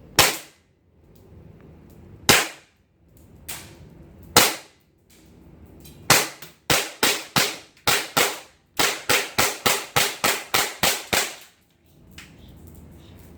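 M9A1 Beretta-pattern airsoft pistol firing semi-automatically: a few single shots a second or two apart, then a fast string of about fifteen shots at roughly three a second, which then stops.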